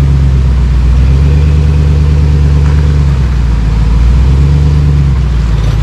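Dodge Power Wagon truck engine running steadily at low revs on an off-road trail, its pitch shifting slightly about three seconds in.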